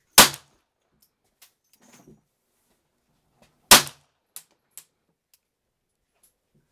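Two single shots from a Hammerli Xesse Sport .22 LR semi-automatic pistol, about three and a half seconds apart, each with a short echo. A few faint clicks come between them.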